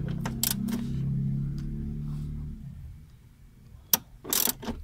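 A few light clicks, then a sharp click about four seconds in and a short burst of rapid ratchet clicking as a ratcheting screwdriver turns a screw. Low steady tones of faint background music run under the first half.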